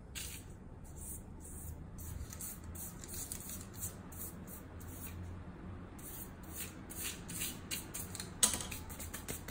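Pastry brush bristles sweeping loose flour off the dough and parchment paper in short strokes: a faint dry swish about two or three times a second, with one sharper tap near the end.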